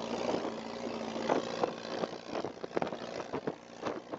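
Beach buggy engine running as it drives over sand, with a steady hum at first and then a run of short knocks and rattles from about a second in.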